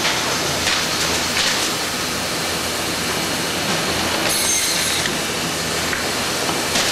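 Factory machinery running steadily, a continuous mechanical rush with a few faint clatters and a brief high ring about four seconds in.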